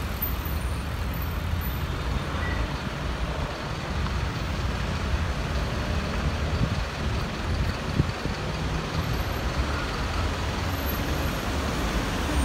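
Steady road traffic noise from cars and vans passing on the road, a continuous low rumble, with a brief knock about eight seconds in.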